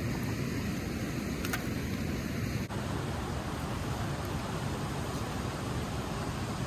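Steady rushing noise of flowing river water, mixed with wind on the microphone.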